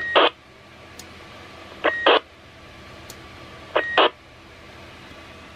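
Roger beep of a Manor Kestrel CB radio received on a handheld CB, three times about two seconds apart: each a short, steady, high beep set between two brief bursts of static as the transmitter keys and unkeys.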